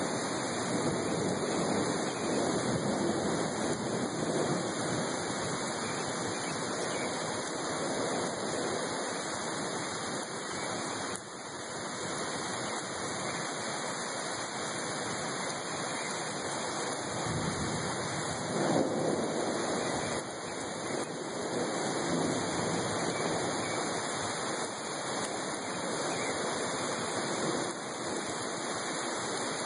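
Steady heavy rain falling, a dense even hiss, swelling briefly about two-thirds of the way through.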